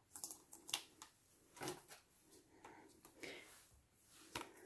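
Faint handling sounds: a few light taps and soft rustles as a plastic-sleeved photopolymer stamp set is handled and put down.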